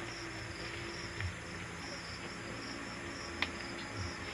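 Steady, high, pulsing chirring of night insects, over a faint low hum, with a single small click about three and a half seconds in.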